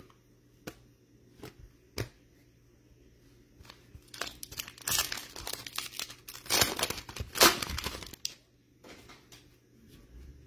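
The plastic wrapper of a football card pack is torn open and crinkled, a few seconds of dense tearing and rustling that are loudest past the middle. Before it, a few soft clicks of cards being handled.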